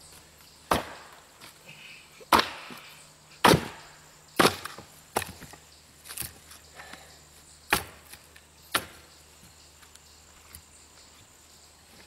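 Axe splitting log rounds: about eight sharp strikes into wood at uneven intervals, stopping about nine seconds in.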